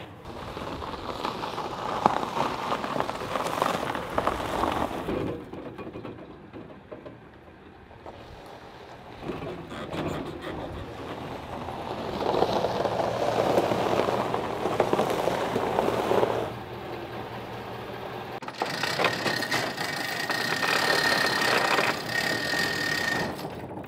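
A vehicle running as a truck backs a boat on its trailer into a shop. Near the end, the hand chain of a steel roll-up door is pulled, with a hiss that cuts off just before the end.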